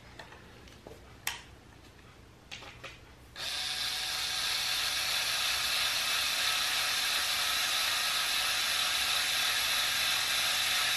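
Small cordless electric screwdriver running steadily for about eight seconds as it drives a number 8 machine screw into a wooden board, starting about three and a half seconds in. Before it, a few light clicks from handling the screw and the tool.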